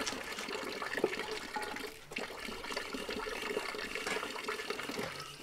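Water running steadily, as from an outdoor tap, with a few light knocks of utensils.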